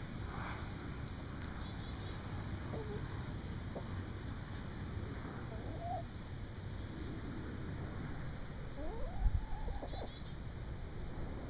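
Backyard hens making short, scattered clucks and low calls as they forage, a few of them about three, six and nine seconds in, over a steady low rumble. A brief thump about nine seconds in is the loudest moment.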